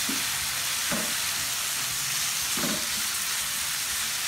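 Chicken pieces sizzling steadily in hot oil in a nonstick frying pan, with a few short scrapes as a silicone spatula stirs them around the pan.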